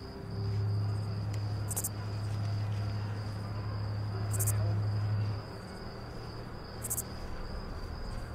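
Insects calling in the woods: a steady high trill, with a sharper, very high chirp about every two and a half seconds. A strong low steady drone runs under it for the first five seconds, then stops.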